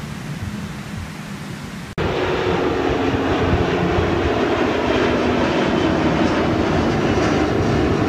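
Surf washing on the beach; then, with a sudden jump in loudness about two seconds in, the steady engine noise of a low-flying jet airliner passing overhead.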